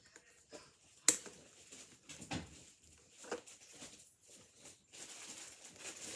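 Handling noises as clothes are unpacked: a sharp click about a second in, a few soft knocks, then a steady rustle from about five seconds in.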